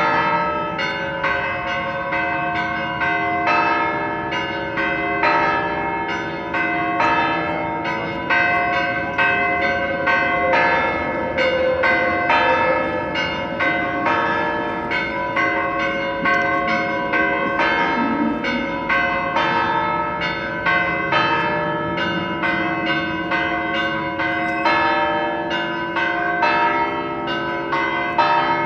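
Church bells ringing in a continuous peal: several bells of different pitches struck about two to three times a second, their tones overlapping and ringing on.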